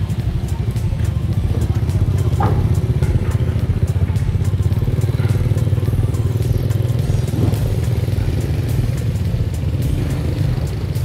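Small motorbike engine idling close by: a steady, rapid low putter.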